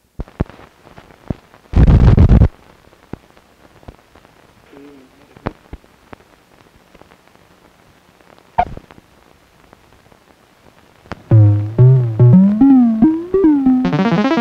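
Crackle and scattered pops of an old film soundtrack over the countdown leader, with a loud burst of noise about two seconds in. From about eleven seconds in, music starts with sliding, gliding electronic-sounding notes.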